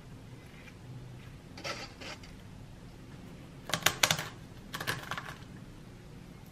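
Soft-boiled egg's shell tapped and cracked against the countertop: two quick clusters of sharp clicks about a second apart. A soft rustle of salad leaves comes before them.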